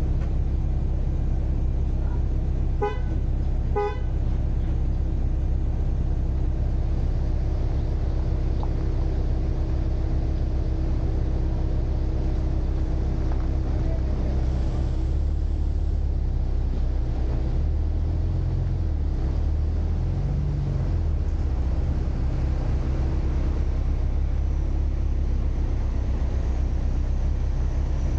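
Steady low engine rumble, with two short vehicle-horn toots about a second apart near the start.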